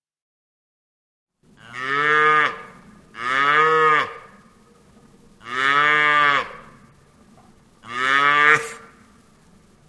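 A cow mooing four times, starting about a second and a half in: each moo lasts about a second and rises then falls in pitch.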